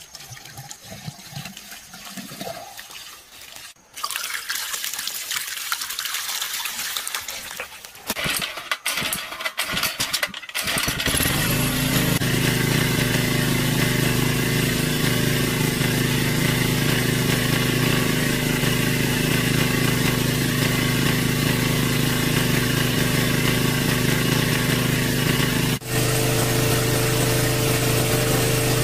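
Water splashing as a bucket is tipped out, then a small petrol-engine water pump starts about eleven seconds in and runs steadily, with water gushing hard from its outlet hose.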